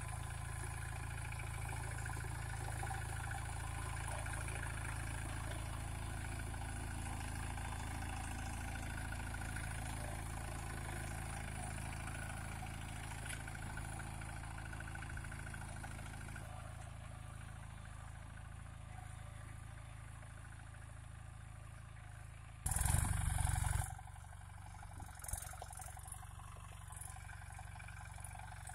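Captain 250 DI compact tractor's diesel engine running steadily as it pulls a tined cultivator through ploughed soil, fading slowly as the tractor moves away. Near the end a loud blast of noise lasting about a second covers it.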